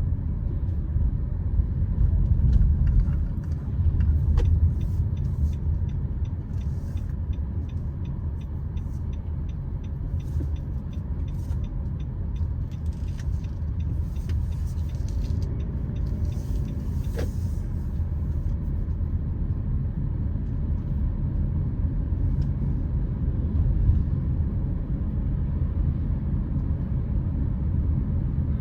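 Car road noise, a steady low rumble. For several seconds near the start, a light regular ticking comes about three times a second.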